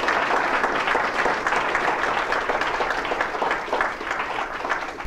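Audience applauding at the end of a lecture: dense clapping that dies away near the end.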